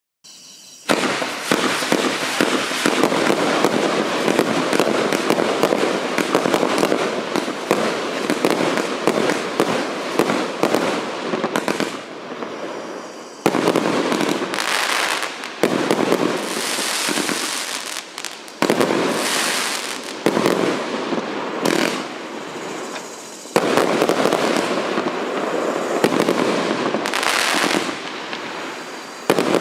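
"Sirius" firework cake (battery of salutes) firing: rapid volleys of shots and bursting crackle starting about a second in, with several short lulls before new volleys begin.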